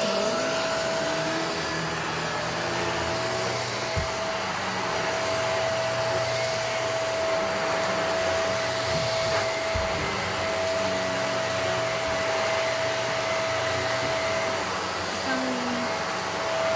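Shark vacuum cleaner running steadily over a rug, really noisy: a constant high motor whine over a rush of air, with a couple of brief knocks.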